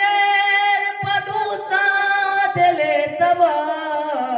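A young man singing a Balochi song unaccompanied into a handheld microphone, drawing out long held notes with no words, the pitch bending and gliding through several phrases.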